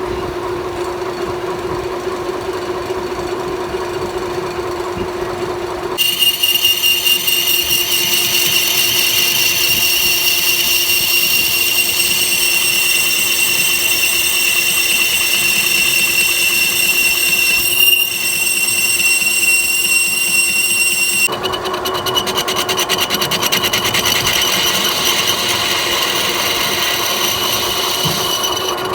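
Metal lathe running with a steady hum. About six seconds in, a high-pitched ringing squeal from the cut joins it and holds for about fifteen seconds. The squeal then gives way to a fast, fine rattle over the hum.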